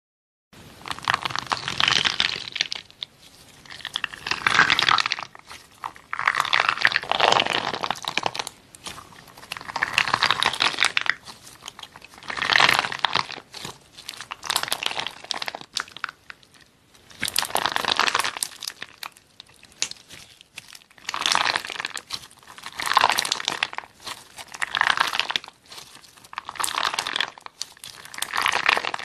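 Clear slime packed with large yellow beads squeezed and kneaded by hand, making crackly, crunchy squishes in repeated bursts every two to three seconds.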